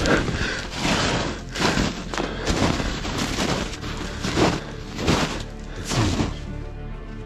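Background music with a slow, heavy beat: a deep hit about every three-quarters of a second over sustained notes.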